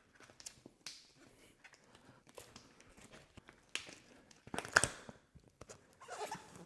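Bicycle tire being pulled off the rim by hand: the rubber bead scuffing and rubbing against the rim in scattered light noises, with a few sharper snaps, the loudest about five seconds in.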